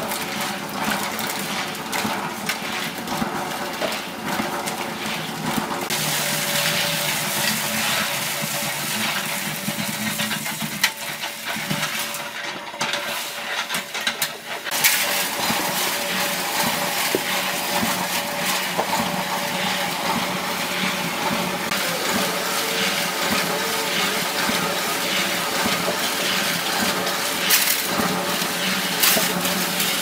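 Electric concrete mixer running, its steel drum turning over a wet cement-and-sand load: a steady hum under a constant gritty rattle and slosh, with a brief lull near the middle.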